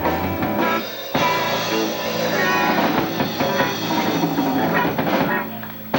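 Live rock band playing the instrumental end of a song, with drums, electric guitar and bass. A sharp full-band hit comes about a second in, and the sound drops away shortly before the end.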